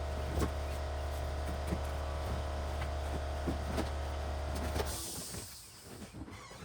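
A steady mechanical motor hum with a few light knocks, which cuts off about five seconds in, followed by a brief hiss.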